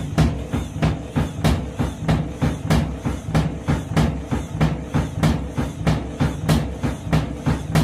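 Candy washing machine drum knocking rhythmically against its cabinet, about three bangs a second over the motor's hum, as it spins with bedding tangled to one side. This is an unbalanced load, which is likely to hammer the drum bearings.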